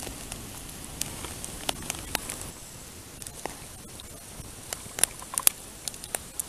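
Wood campfire crackling: scattered sharp pops and snaps over a steady low hiss, with a small cluster of louder pops about five seconds in.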